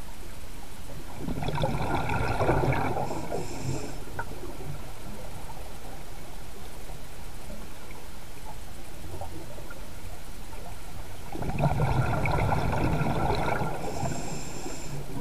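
Scuba diver's exhaled air bubbling out of the regulator underwater: two bursts of about two and a half seconds each, some ten seconds apart, over a steady underwater hiss.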